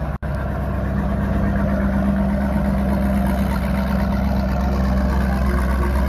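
Motorboat engines running nearby: a steady, low engine drone, briefly cut off for a split second just after the start.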